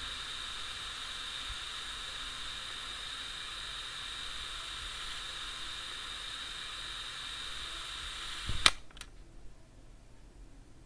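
Steady hiss playing from a handheld voice recorder's small speaker, cut off sharply with a loud click of its button near the end, then a second, softer click.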